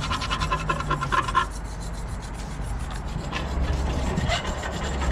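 Ratchet wrench clicking rapidly while bolts are undone during oil-pan removal. A fast run of clicks stops about a second and a half in, and shorter spells follow near the end.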